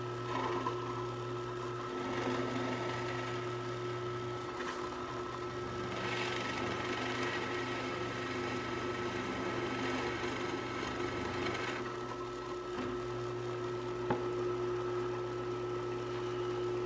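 Drill press running steadily with a steady motor hum, its bit boring holes into plywood. The cutting noise grows louder from about six to twelve seconds in, as the bit is fed into the wood.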